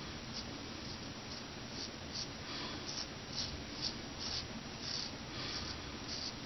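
Straight razor scraping through beard stubble on the neck in short strokes, about two a second.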